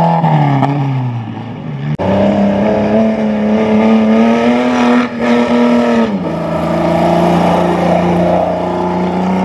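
Safari rally car engine running hard. The pitch falls over the first two seconds, then the sound changes abruptly to a higher, steady engine note that creeps up, drops sharply about six seconds in, as at a gear change, and then holds steady.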